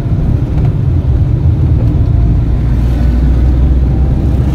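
Loud, steady low rumble of an ambulance van's engine and road noise, heard from inside the rear compartment while it drives.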